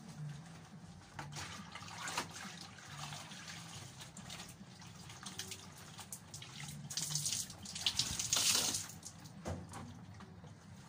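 Water splashing and sloshing in a plastic basin as wet laundry is handled by hand. The splashing comes in short bursts and is loudest about seven to nine seconds in.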